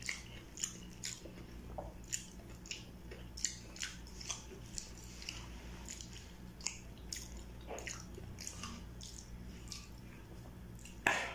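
Close mouth sounds of biting and chewing kwek-kwek, deep-fried battered quail eggs: wet smacks and clicks scattered irregularly throughout, over a faint steady low hum.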